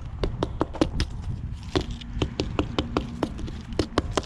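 A quick, irregular run of light, sharp clicks and taps, about three or four a second, over a faint steady low hum.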